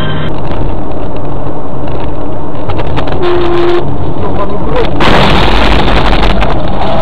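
Loud, distorted road and engine noise inside a moving car, recorded by a dashcam. About five seconds in it jumps to a harsher, louder rushing noise.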